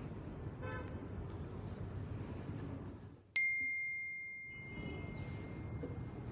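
Phone text-message notification: a single clear ding about three seconds in that rings out and fades slowly. The low background noise cuts out for a moment just before it.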